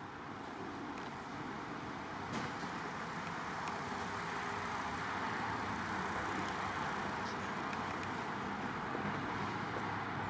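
Seydelmann ME 130 mixing grinder running: a steady machine noise that builds over the first few seconds and then holds even, with a few faint clicks.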